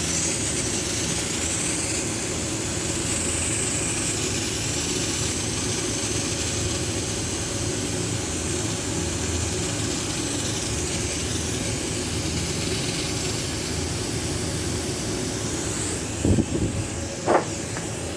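Gas hissing steadily through the refrigerant pipework of an air-conditioner outdoor unit as it is flushed, with a faint steady hum underneath. Near the end come two short, louder sounds, one a brief whistle.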